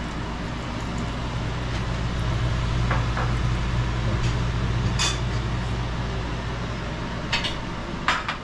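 A few sharp clinks of pots, dishes and utensils, one about three seconds in, one about five seconds in, and two close together near the end, over a steady hiss and a low hum.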